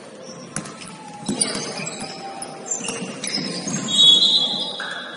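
Basketball shoes squeaking in many short high chirps on a gym floor, with a few ball bounces. About four seconds in, a longer, louder high-pitched squeal stands out.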